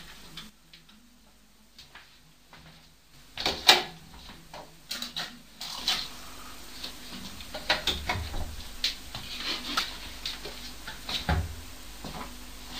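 Irregular household clicks and knocks with no steady rhythm, the sharpest cluster about four seconds in, and a couple of dull low thumps later on.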